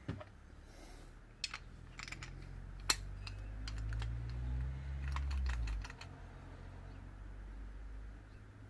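Small metal parts of a VW Scirocco steering lock and ignition barrel clicking and tapping against tools as the lock is taken apart, in scattered sharp clicks with a quick cluster about five seconds in. A low rumble swells under the clicks midway and drops off about six seconds in.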